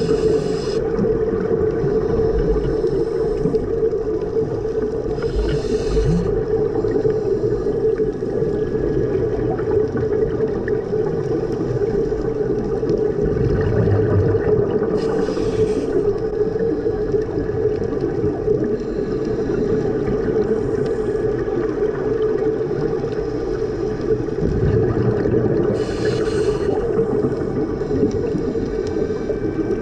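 Scuba diver's breathing through a regulator, heard underwater: a short hiss on each inhalation every several seconds, with a low bubbling rumble of exhaled air. Under it runs a steady humming drone.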